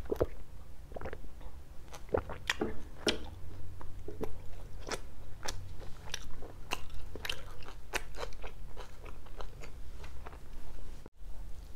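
Close-miked chewing of pizza with a crisp crust: a string of short crunches and wet mouth clicks, roughly one to two a second. The sound drops out for a moment near the end.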